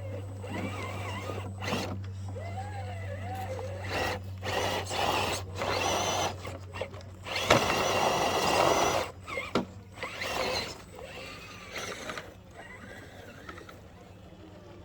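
Small electric motors and gear drives of radio-controlled crawler trucks whining in short bursts as they are driven, with the longest, loudest burst about halfway through.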